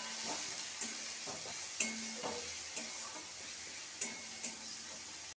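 Onion-tomato masala sizzling in hot oil in a kadai while it is stirred, the spoon scraping against the pan a few times.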